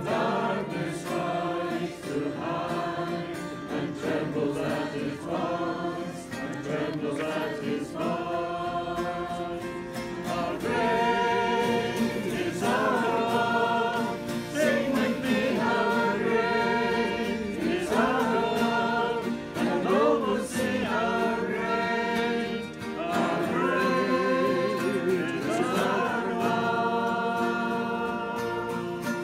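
A group of men's and women's voices singing a song together, as an informal choir reading from song sheets; the singing grows louder about ten seconds in.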